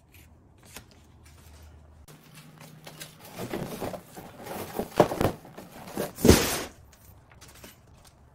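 Large cardboard box rustling and scraping as it is handled and shifted on concrete while the unicycle frame is freed from it, with a sharp knock midway and the loudest scrape shortly after.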